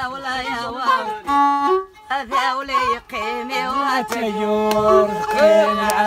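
Violin, held upright on the knee in Amazigh style, bowing an ornamented, wavering melody in an instrumental passage, with brief breaks in the phrase.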